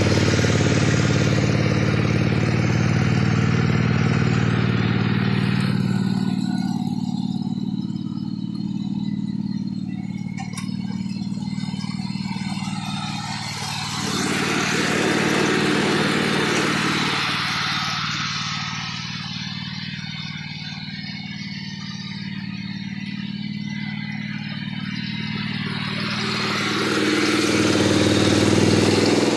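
Riding lawn mower engine running steadily while the tracked mower pulls a moldboard plow through the soil. The engine is louder in the first few seconds, again around the middle and near the end, and quieter in between.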